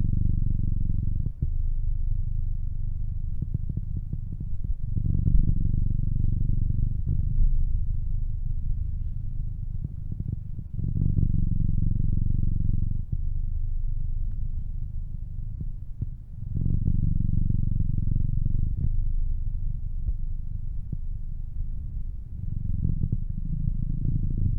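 Snoring: a low snore on each breath, repeating about every five to six seconds, each one lasting around two seconds.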